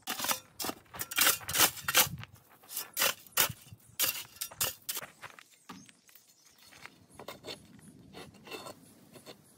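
Shovel scraping and scooping through gravel in a quick run of crunchy strokes for about five seconds, then quieter, sparser scrapes and knocks.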